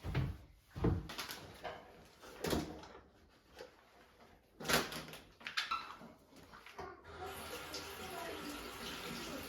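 A few knocks and clatters of objects being handled, then about seven seconds in a tap is turned on and water runs steadily.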